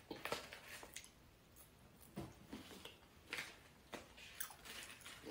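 A person eating snack chips: irregular short, crisp crunches of chewing, faint, with no rhythm.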